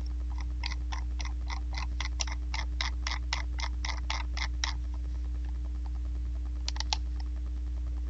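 A computer mouse scroll wheel clicking in an even run of small ticks, about four a second, for some four seconds, then three quick clicks near the end. Under it runs a steady low electrical hum.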